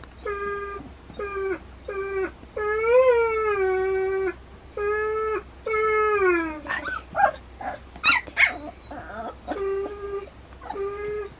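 Puppies about two and a half weeks old whining: a run of short, even whines, a longer drawn-out whine about three seconds in, then a burst of higher, sharper squeaks and yelps around seven to nine seconds before the short whines return.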